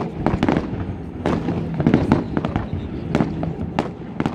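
Fireworks display going off: an irregular string of a dozen or so sharp bangs and crackles from bursting shells, over a continuous low rumble.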